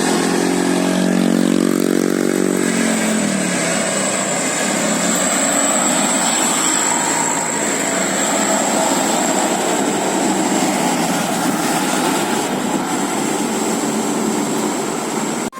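Heavy bus engine passing close, its pitch dropping as it goes by about three seconds in, then steady traffic and road noise, with a thin high whine throughout.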